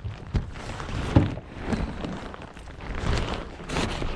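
A run of irregular knocks and thumps over steady wind noise.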